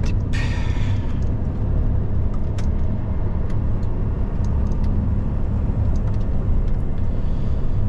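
Tatra Phoenix tipper truck's diesel engine and road noise heard from inside the cab while driving: a steady low rumble.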